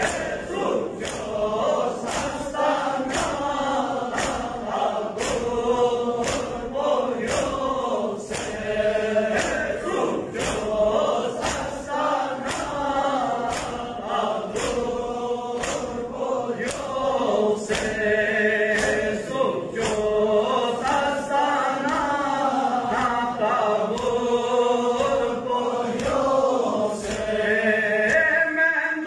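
Men's voices chanting a Balti noha in chorus, a mourning lament, with sharp rhythmic slaps of matam chest-beating keeping time at about two beats a second.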